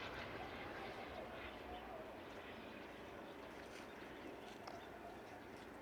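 Faint, steady outdoor background noise with no gunfire, and a faint wavering sound now and then that may be distant voices.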